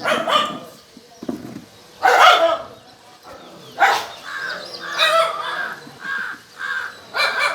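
Crows cawing: louder harsh calls about two and four seconds in, then a run of short repeated caws in the second half.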